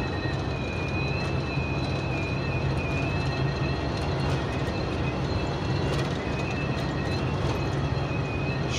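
Steady high-pitched wind whistle in a truck cab at highway speed, several thin tones held together over the low drone of engine and tyres. The driver places the whistle at the front, seemingly along the windshield.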